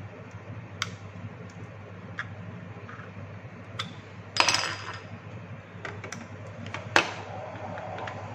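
Small metal screwdriver clicking and scraping against the plastic housing of a clamp meter during disassembly: scattered light ticks, a louder scraping clatter about halfway through, and a sharp click near the end.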